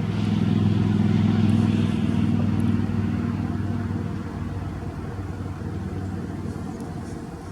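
A motor vehicle's engine running with a steady low pitch, growing louder over the first second or so and then gradually fading.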